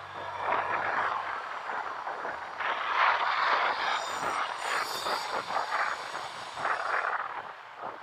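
Riding noise from a motorcycle: wind rushing over the microphone, swelling and easing and loudest about three seconds in, over a faint low engine hum.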